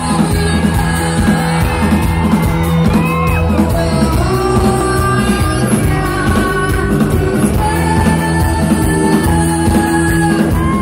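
Live rock band playing loud: sung vocals over electric guitar, bass and drums with a steady beat, heard from among the audience in a concert hall.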